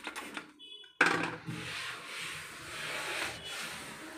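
A cloth scrubbing and wiping a kitchen shelf sprayed with cleaner: a rough, uneven rubbing that starts abruptly about a second in, after a few faint ticks.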